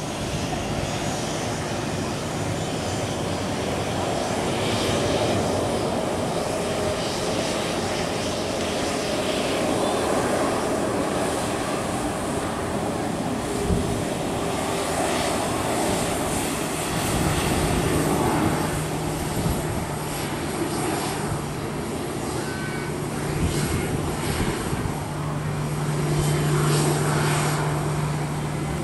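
Boeing 737-800 jet engines running at taxi power as the airliner rolls past: a steady rush with a low hum that grows louder in the second half.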